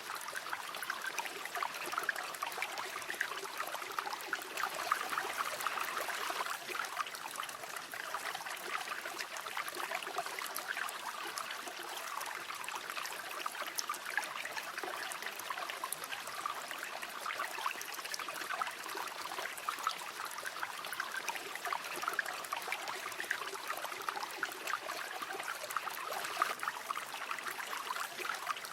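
River water flowing and babbling steadily, with fine splashing and trickling over stones.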